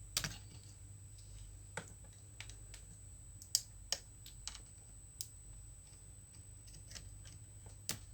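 Small irregular clicks and taps of plastic and metal laptop parts being handled as the power-supply (DC-in) connector cable is worked loose from a laptop motherboard, with a few sharper clicks near the start and about three and a half seconds in.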